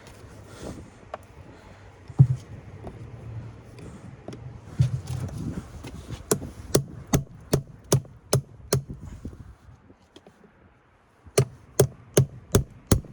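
Hammer striking a chisel to break pieces off a forklift battery cell: a couple of single blows, then two runs of quick, evenly spaced strikes, about two or three a second, with a short pause between them.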